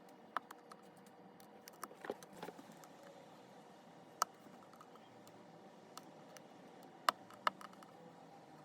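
Faint, irregular sharp clicks and taps from a thin metal blade prying a cracked phone screen away from its adhesive and plastic frame, with a few louder clicks about four seconds in and again near the end.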